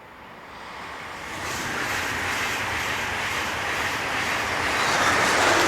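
Freight train hauled by a Siemens Smartron electric locomotive approaching on the rails, its rolling noise building over the first two seconds and growing louder toward the end.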